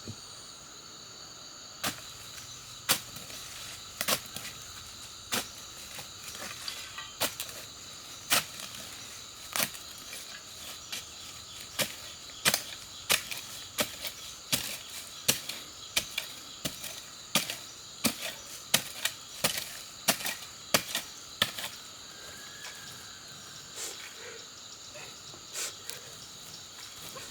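Sharp knocks repeating irregularly, about one or two a second, over a steady high trilling of insects.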